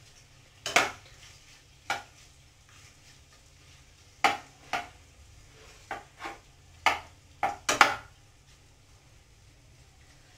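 Metal fork knocking and scraping against a pan while penne pasta is stirred, about nine short knocks at irregular intervals.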